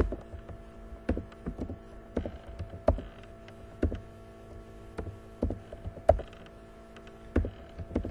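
Computer keyboard keystrokes, irregular single taps and short runs as numbers and formulas are typed into spreadsheet cells, over a steady electrical hum.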